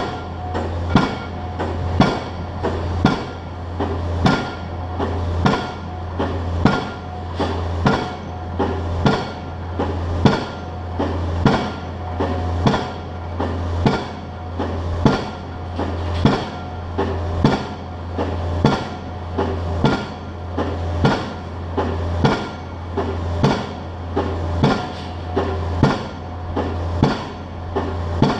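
Pile driver hammering a pile, one sharp ringing blow about every second in a steady rhythm. The rig's engine drones underneath.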